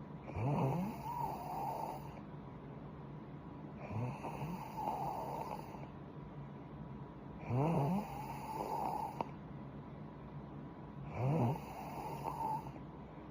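A young woman snoring in her sleep: four snores about every three and a half seconds, each rising in pitch as it begins.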